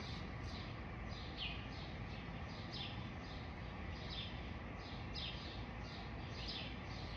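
Birds chirping: short, quick downward-sliding chirps repeated two or three times a second without a break.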